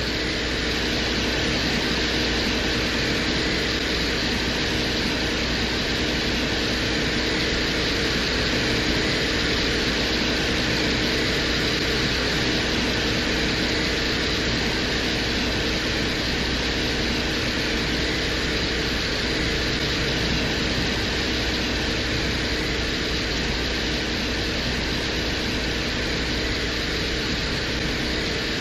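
A steady rushing noise with a constant low hum and a few faint steady tones, unchanging throughout. It is presented as the real atmospheric sound of Venus picked up by the Venera 14 lander's microphone.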